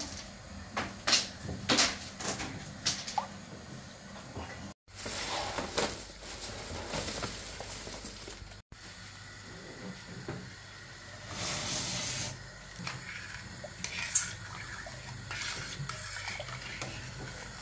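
Scattered sharp knocks and clatters, then splashing and running water, as in kitchen work; the sound drops out briefly twice.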